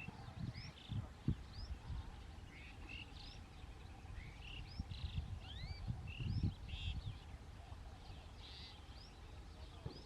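Asian pied starlings calling, a string of short upward-slurred chirps and chatter. Low rumbling bumps sound on the microphone, loudest about a second in and again after six seconds.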